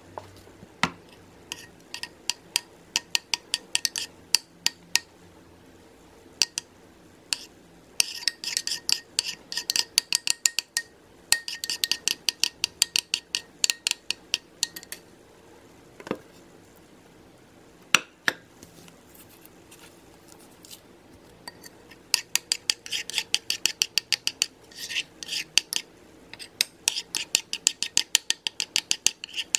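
Metal spoon stirring a white glue slime mixture in a bowl, clinking quickly against the bowl's sides and bottom in runs of fast strokes, with a few short pauses.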